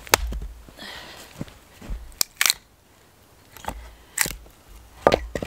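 Husqvarna camp hatchet chopping into a log round to split it: a series of sharp, woody knocks at uneven spacing, some in quick pairs.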